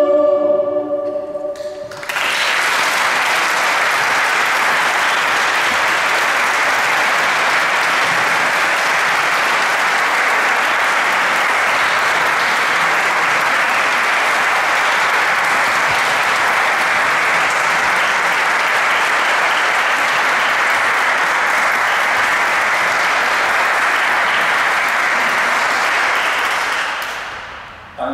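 A mixed choir's final chord dies away in the first second or two. Then an audience applauds steadily for about 25 seconds, and the applause fades out near the end.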